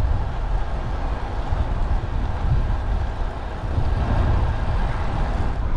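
Steady low wind rumble on an action camera's microphone, with road noise, while riding a bicycle.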